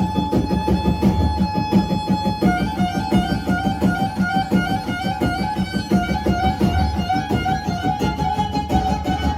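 Black Sea kemençe playing a lively instrumental melody over keyboard accompaniment and a steady dance beat. The melody holds one high note for about two seconds, then breaks into fast repeating runs.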